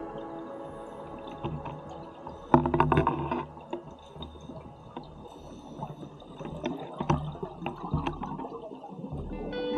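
Underwater sound of a scuba diver's exhaled bubbles gurgling, with a loud rush of bubbles about two and a half seconds in and a few sharp clicks later on.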